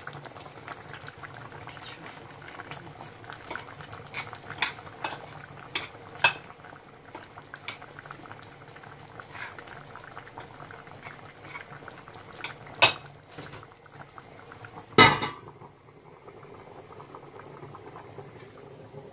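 A pot of couscous broth with vegetables and chickpeas boiling, bubbling and popping steadily. Two loud clanks of cookware about 13 and 15 seconds in, after which the bubbling settles to a softer, even hiss.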